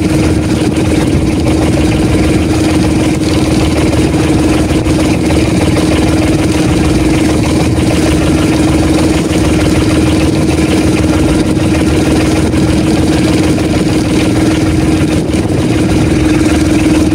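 Outrigger fishing boat's engine running steadily aboard, a constant hum with no change in speed.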